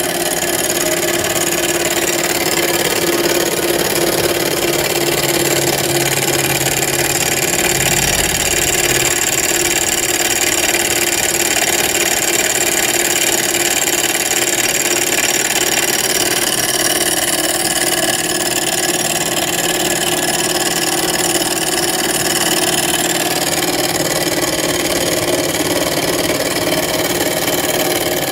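Miniature Stirling engine running steadily at speed, heated by an oxyhydrogen (HHO) gas flame and driving a small DC motor as a generator; an even whirring hum with a steady tone.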